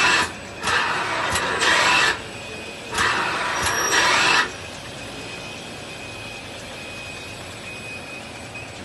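DGXQ-1 automatic capping machine on an engine-oil bottling line running: two harsh hissing bursts, each about a second and a half long, with the second ending about four and a half seconds in. After them comes a steady, quieter machine hum with a faint high whine.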